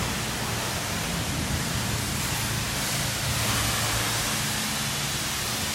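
Steady rushing of high-pressure water spraying in a self-service car wash bay, over a low steady hum.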